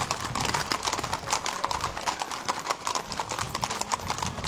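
Hooves of several horses walking on a paved road, a dense, irregular clip-clop of many overlapping hoofbeats.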